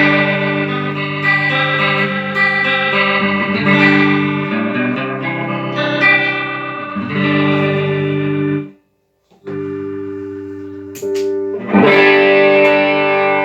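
Electric guitar chords played through a Line 6 HD500X multi-effects pedalboard, with effects and some distortion on the tone; the repaired unit is passing signal to its output. The sound cuts out completely for about half a second around nine seconds in, then the chords resume.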